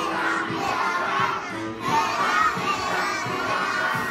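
A group of young children shouting and singing together in a loud chorus, with backing music under their voices.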